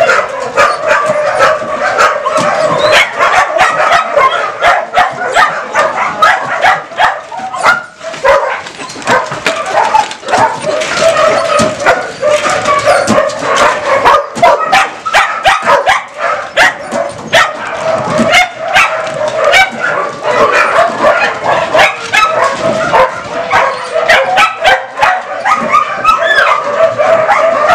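Many shelter dogs in their pens barking at once, a continuous din of overlapping barks with no break: the dogs' greeting for visitors arriving.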